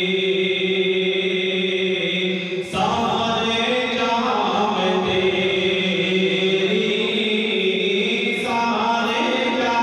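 A man chanting an Urdu hamd, a devotional poem in praise of God, solo and unaccompanied into a microphone. He holds a long steady note, breaks for a breath about two and a half seconds in, then goes on with phrases that rise and fall in pitch.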